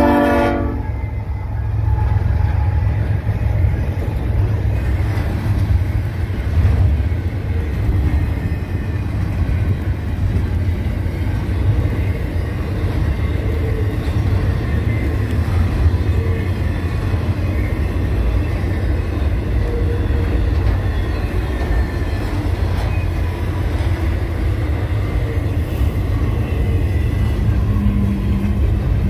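Freight train rolling past with a steady, heavy low rumble. A locomotive horn blast cuts off about half a second in.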